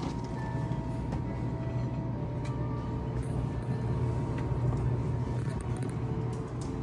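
Steady low hum of a glass-door drinks fridge standing open, with a few faint light ticks as a bottle is taken from the shelf.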